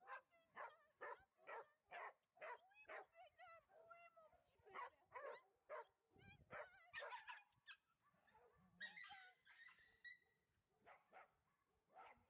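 Dogs barking repeatedly in short, high-pitched barks, about two a second. After about six seconds the barking breaks off for a few seconds, with a brief whine, then picks up again near the end.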